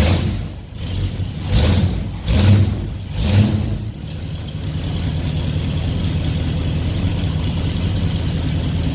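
Classic Ford Mustang V8 through its exhaust, blipped three times in quick succession, then settling into a steady idle.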